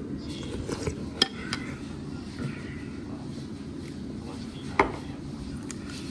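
White porcelain soup spoon clinking against a ceramic bowl: a few light clinks in the first second and a half, and one sharp, louder clink near five seconds, over a steady background hum.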